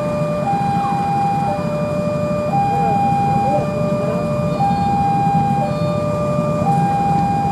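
Railway level-crossing warning alarm sounding a steady two-tone hi-lo signal, each tone about a second long. Under it is the low rumble of an approaching KAI CC 203 diesel locomotive.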